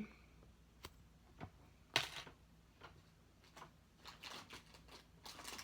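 Faint handling noise from a packaged squishy toy: a few scattered light clicks and taps, the loudest about two seconds in, then soft plastic crinkling near the end.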